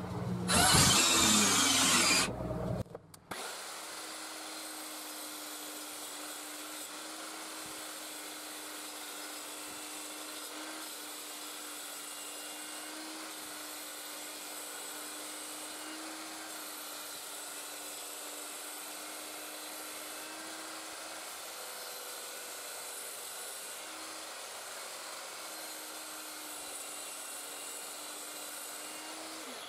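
Table saw blade shaving a wooden blank as a cordless drill spins it in a sphere-turning jig: a steady, even whir with a held tone and a hiss of cutting, after a brief loud burst in the first couple of seconds.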